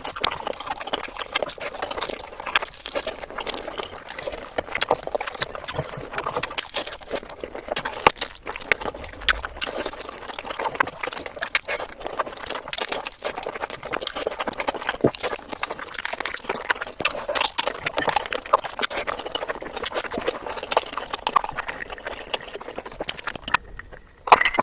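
Close-up eating sounds: a person chewing and smacking, an irregular run of many small mouth clicks, with a louder knock near the end.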